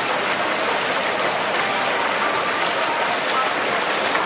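Steady rushing and splashing of pool water as swimmers race freestyle.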